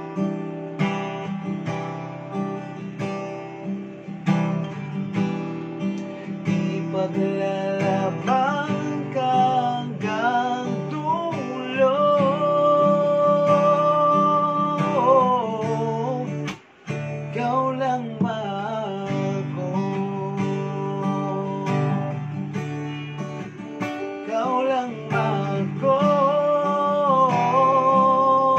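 Man singing a Tagalog ballad to his own strummed D&D Celestial II acoustic guitar, with long held notes in the vocal line.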